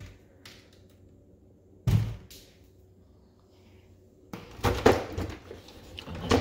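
A wooden kitchen cabinet door opening with small clicks, then shutting with a single thump about two seconds in. Near the end comes a run of clattering as a drawer holding a rack of spice jars is pulled open.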